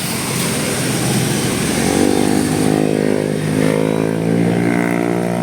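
A vehicle engine running under load, with steady road and engine noise; about two seconds in, a pitched engine drone comes in and holds steady.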